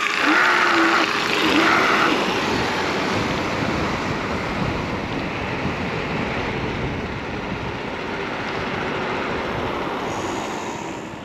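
Steady rush of wind and road noise from an electric scooter being ridden hard at speed. It is loudest over the first couple of seconds after the start and eases a little near the end.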